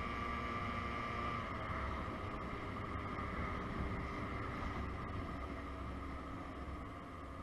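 Motobi BS1 50cc scooter, only partly derestricted, running along at road speed, its engine note easing down a little about one and a half seconds in. Wind rumble on the microphone underneath.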